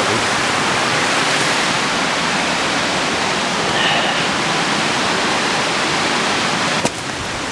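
Rushing water, a steady, loud, even rush with no let-up, which breaks off with a click near the end.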